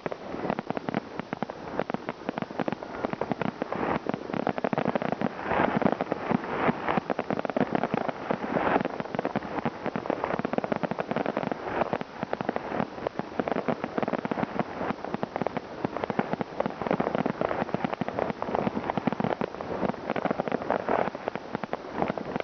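New Year's Eve fireworks: a dense, continuous crackle of many firecrackers and fireworks going off at once, with no pause between bangs.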